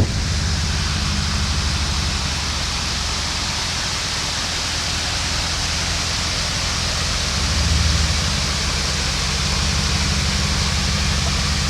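Jeep Grand Cherokee WK2 engine running with a steady low drone under an even rushing hiss; the drone swells briefly about two-thirds of the way through.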